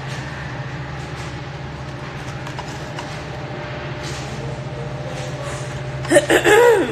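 A steady low mechanical hum with a fast flutter. A voice briefly comes in near the end.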